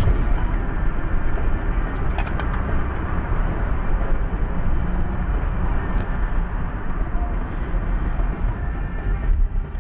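Steady tyre and engine rumble of a car driving at highway speed, heard from inside the cabin.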